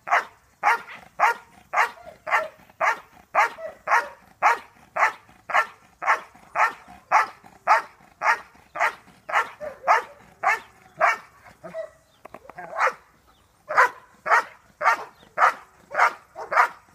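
A large dog on a leash barking over and over, about two barks a second, at a man approaching it, with a short break a little past the middle.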